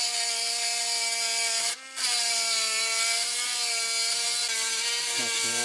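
Small handheld rotary tool (a cheap Drill Master, Dremel-style) grinding the lower part of a Yamaha Blaster 200cc engine's case half, clearing metal where the connecting rod was striking the case. It gives a steady high whine with a grinding hiss, cuts out briefly about two seconds in, then resumes.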